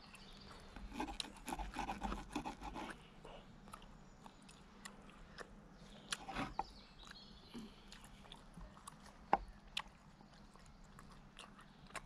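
Close-up chewing of steak, with a serrated steak knife scraping and clicking against a wooden cutting board as the meat is cut. The chewing is densest in the first few seconds, and one sharper click comes about three quarters of the way through.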